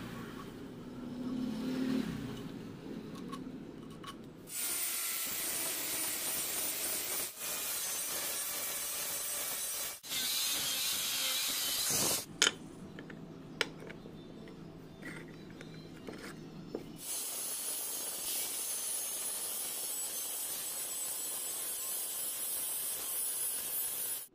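Metalworking tool noise in several short clips cut together: steady hissing and grinding-like noise, broken by a quieter stretch with two sharp clicks about halfway through.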